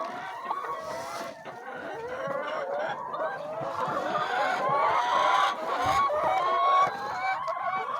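A flock of chickens clucking and calling, many birds at once in a steady overlapping chatter.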